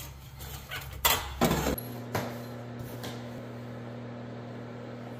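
Metal clinks and knocks from handling a perforated steel seismic strap on a water heater, the loudest about a second in. Then a steady low hum with a couple of faint clicks.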